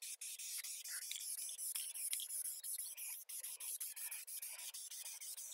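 Aerosol spray can hissing as primer is sprayed on.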